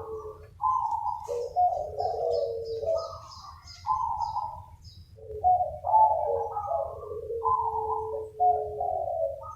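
Several zebra doves (perkutut) cooing in overlapping phrases, answering each other, with a short lull about halfway through. Faint high chirps of small birds sound in the first few seconds.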